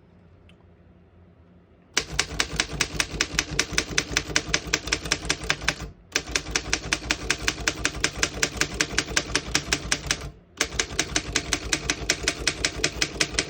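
1912 Underwood No. 5 manual desktop typewriter being typed on: rapid, even key strikes at about ten a second, in three runs of about four seconds with short breaks, starting about two seconds in.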